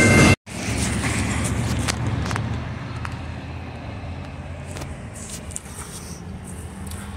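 Freight train cars rolling past with a steady wheel squeal, cut off abruptly a moment in. Then a car drives along a street, its engine and tyre noise slowly fading.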